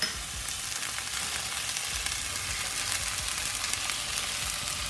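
Ribeye steak frying in a hot pan with a melting pat of garlic butter, a steady sizzle with scattered small crackles and pops.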